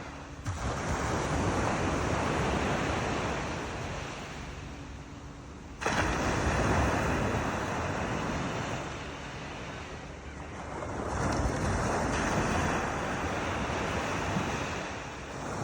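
Sea waves breaking on the shore, the surf swelling and ebbing three times, the second surge coming in abruptly about six seconds in, with some wind on the microphone.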